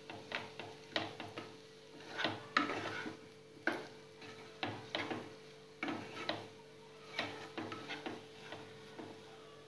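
Wooden spatula stirring potato cubes and peas in a nonstick kadai: irregular scrapes and knocks of wood against the pan, over a faint steady hum.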